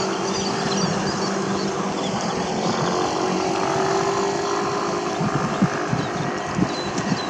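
A steady low engine drone over wind buffeting the microphone and small waves lapping.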